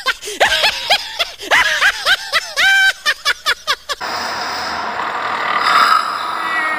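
High-pitched giggling: a quick run of short, squeaky rising-and-falling notes with one held note in the middle, cutting off abruptly about four seconds in. After it only a steady background rumble remains.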